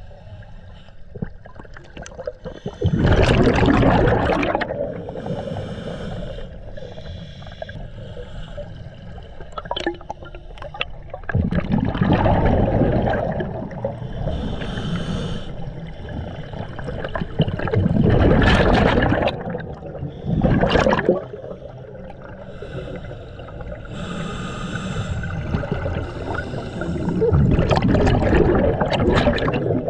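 Scuba regulator breathing heard underwater: four long gurgling bursts of exhaled bubbles, about seven or eight seconds apart, with a quieter hiss of inhalation between them.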